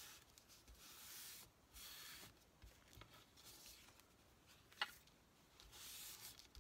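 Faint rustling and rubbing of paper and craft trims being handled, in a few short spells, with one sharp click a little after the middle.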